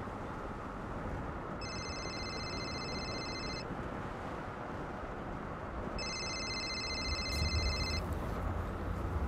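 Electronic telephone ringing twice, each ring about two seconds long with a couple of seconds between, over a steady background hiss. A low rumble comes in near the end.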